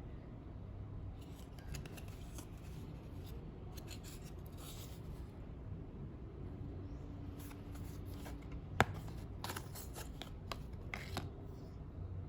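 Hands handling packaging: rustling and scraping with scattered clicks, and one sharp click about nine seconds in.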